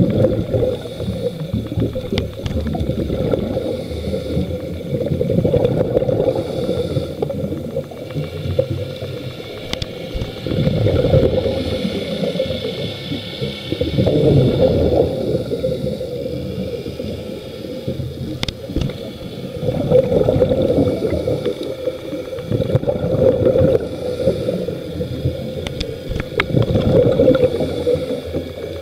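Scuba diver breathing through a regulator underwater, heard through the camera housing: exhaled bubbles gurgle past in surges about every three to four seconds, over a steady underwater rumble.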